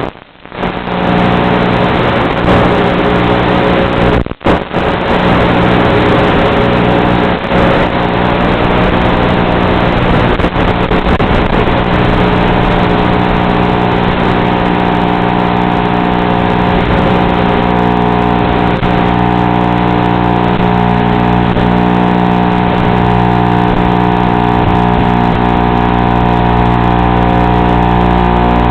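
FPV quadcopter's brushless motors and propellers running steadily in flight, a steady layered hum over a hiss. The sound cuts out for an instant about four seconds in.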